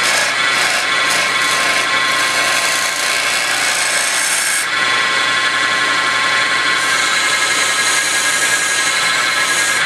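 Small wood lathe running with a steady motor whine as it spins a wooden spindle. In the first seconds a hand-held turning tool scrapes the turning wood with a scratchy hiss. That hiss stops a little before halfway, and from about two-thirds of the way in sandpaper hisses against the spinning workpiece.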